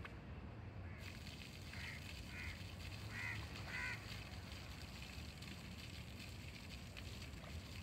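Faint outdoor ambience: a steady low rumble and a light hiss, with four short pitched calls about two to four seconds in.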